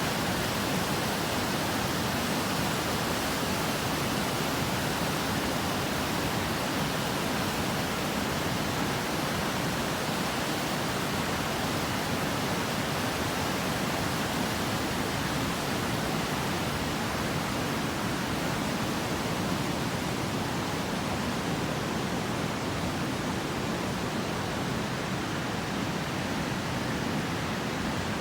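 Steady rush of flowing water from a stream, even and unbroken.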